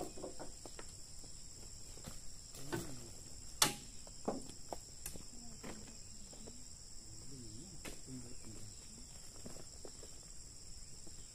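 Steady high-pitched chorus of crickets or cicadas, with about half a dozen sharp knocks and thuds, the loudest about three and a half seconds in, as oil palm fruit bunches are handled and loaded into a pickup truck's bed.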